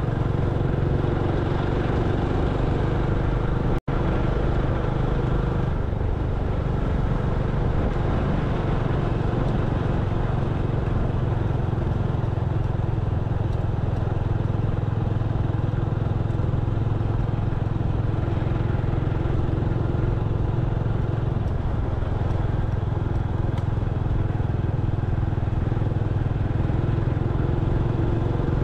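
Honda Future motorcycle's single-cylinder four-stroke engine running steadily while riding, with road noise. The sound cuts out for an instant about four seconds in.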